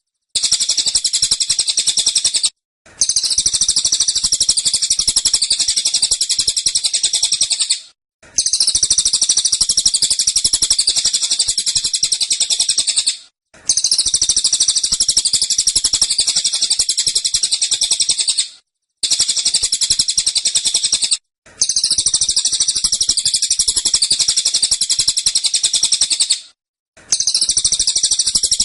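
A cililin songbird singing its fast, dense, high-pitched trilling 'tembakan' song in bursts of a few seconds each, with about six short breaks between them.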